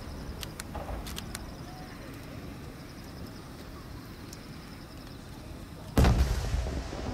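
A large aerial fireworks shell bursting: one deep boom about six seconds in, followed by a long rolling rumble and echo. Before it come a few faint crackling pops.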